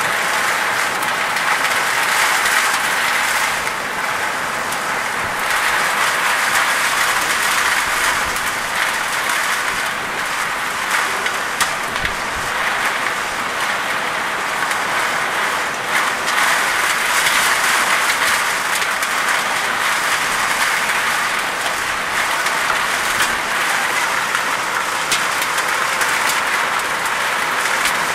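Heavy rain pouring down in a storm: a dense, steady hiss of a downpour.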